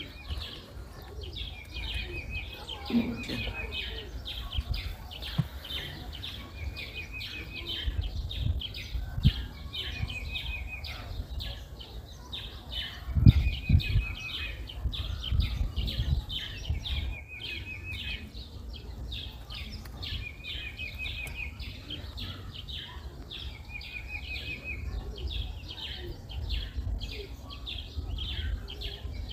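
Birds chirping continuously, with a short trilled call repeated about every three seconds. Under it are low thumps and handling sounds from eating and cutting roasted goat meat, the loudest a little after halfway.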